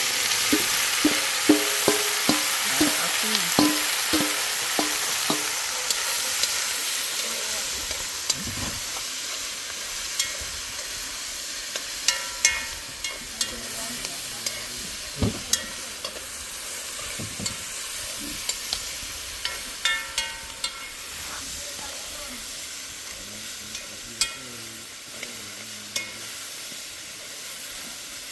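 Chicken pieces browning in hot oil in a pot, sizzling steadily, while a metal spoon knocks and scrapes against the pot as they are stirred. The knocks come about twice a second for the first few seconds, then now and then, and the sizzle slowly dies down.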